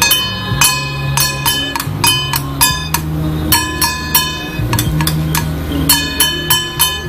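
Temple procession percussion: metal gongs or cymbals struck in quick rhythmic clusters, each strike ringing on, over a low sustained tone. It accompanies a dance by a face-painted guardian troupe.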